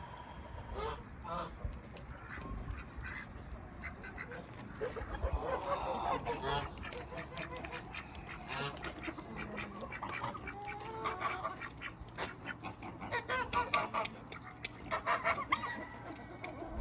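Farmyard poultry calling: many short calls overlapping, with scattered clicks and taps among them.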